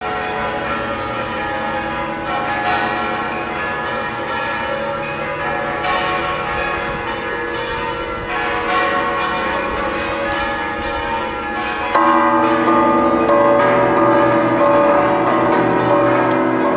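Guadalajara Cathedral's tower bells pealing together in an esquileo and repique, with many bell tones overlapping continuously. The ringing grows louder about twelve seconds in.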